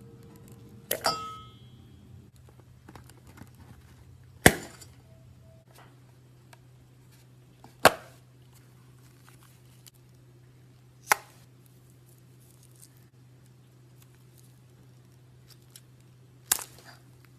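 Five sharp knocks a few seconds apart, hard objects set down or tapped on a hard surface, the first with a brief ringing clink, over a steady low hum.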